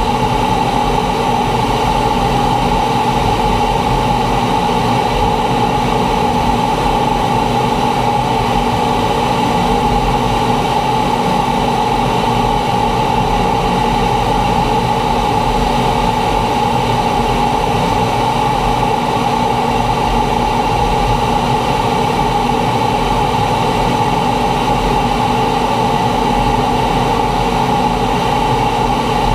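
Cockpit noise of a T-45 Goshawk jet trainer in flight: the steady drone of its single Adour turbofan engine and rushing air, with a prominent mid-pitched hum that does not change.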